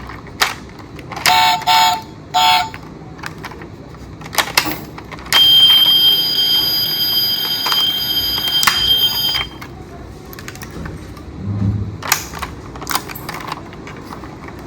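Electronic sound unit of a battery-powered toy emergency vehicle: three short beeps, then a steady high electronic tone lasting about four seconds, with scattered sharp clicks and knocks of hard plastic.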